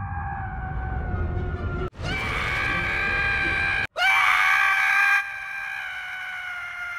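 Scrat, the cartoon sabre-toothed squirrel from Ice Age, screaming: three long cries, each held at a steady pitch and cut off by a brief gap. The third is the loudest and fades to a softer held scream after about a second.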